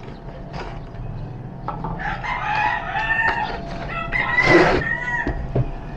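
A rooster crowing in the background, over the rustle and light knocks of a cardboard box being handled as a solar panel is slid out of it.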